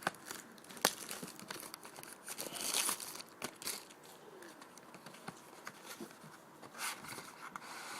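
Packaging on a 2012 Panini Prominence football card box crinkling and tearing as the box is carefully opened, with a few sharp clicks in between.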